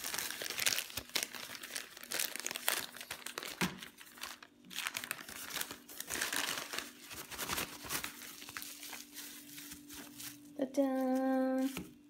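Plastic packaging crinkling and rustling in irregular crackles as a polythene mailer bag is opened by hand and the bubble wrap inside is pulled out and unfolded.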